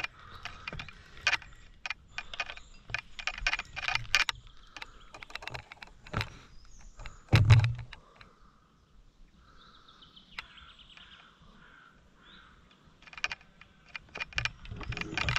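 Irregular clicks and handling knocks from a fishing rod, reel and hand-held camera while a hooked carp is played, with one louder thump about seven and a half seconds in. The middle stretch is quieter.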